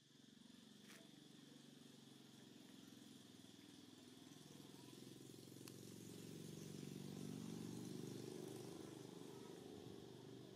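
Faint low engine drone, slowly getting louder until about eight seconds in and then easing off, with a faint steady high tone above it.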